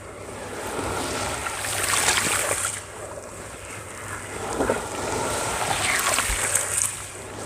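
Hands crumbling and squeezing chunks of wet white sand in a basin of water, the water sloshing and swishing in two swells.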